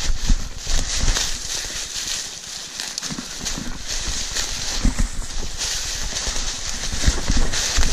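Footsteps crunching and shuffling through thick dry leaf litter while walking downhill, with irregular dull footfalls under a steady rustle.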